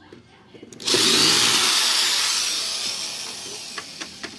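Cordless drill-driver starting up suddenly about a second in and running, most likely backing a screw out of the printer's plastic housing. Its pitch and level fall away gradually over the next few seconds.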